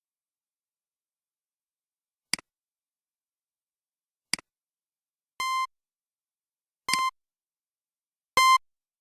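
Nokia 5140 mobile phone: two short clicks, then three short key beeps, each about a quarter second long and about a second and a half apart. They are typical of the phone's keypad tones as its menu is stepped through.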